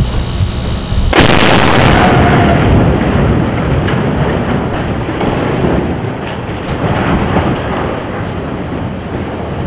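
Explosive charges of a controlled bridge demolition going off in a sharp, loud blast about a second in. A long rumble follows and slowly fades as the cut steel truss falls into the water, with scattered crackles through it.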